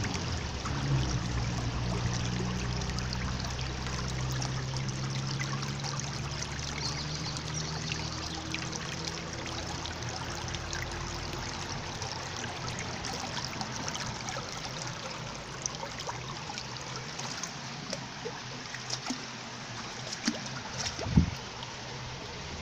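Shallow stream water running and trickling over rocks. A low steady hum fades away over the first half, and there is a single knock near the end.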